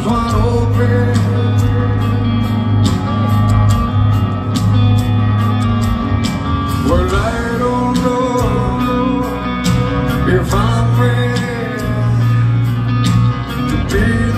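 A rock band playing live in an arena, heard from the crowd: electric guitars, bass and drums keeping a steady beat, with a singer's long, gliding held notes a few times in the second half.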